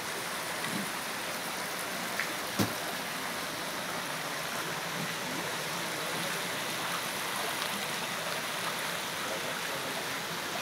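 Steady hiss of rain mixed with the rushing of a hot-spring stream over rocks, with one sharp click about two and a half seconds in.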